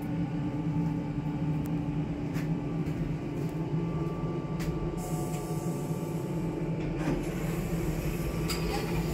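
Movilift lift car humming steadily as it creeps slowly to level at the floor, then its doors slide open; the hum stops just after.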